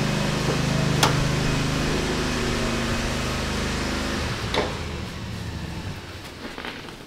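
A steady low mechanical hum that cuts off about four seconds in. A sharp click sounds about a second in, and a few light knocks come over quieter shop noise after the hum stops.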